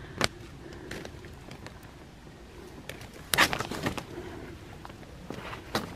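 Faint bird cooing over quiet outdoor ambience, with a few sharp taps and knocks, loudest in a short cluster about three and a half seconds in.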